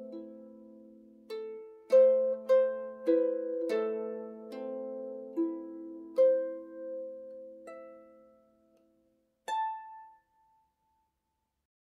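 Celtic harp playing slow background music, with plucked notes ringing and dying away over lower sustained notes. The playing thins out, and one last note about nine and a half seconds in is cut off abruptly, leaving silence.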